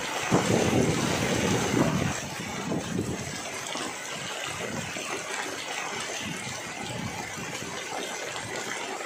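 Heavy rain pouring down with a steady rushing hiss of water, heavier and fuller for about the first two seconds.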